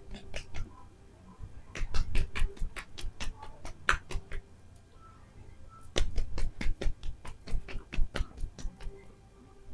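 Hands tapping and patting during a head massage, in two runs of quick taps, several a second, each tap with a soft thump, at the close of the treatment.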